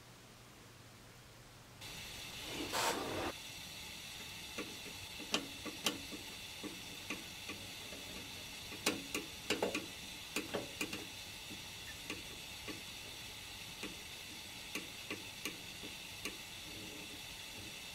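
Gas stove burner hissing steadily under a steel plate, starting about two seconds in, with scattered light metal clicks and taps as a steel burnishing tool and tweezers work gold foil onto a hot silver piece (keum boo). A brief louder burst of noise comes near the start of the hiss.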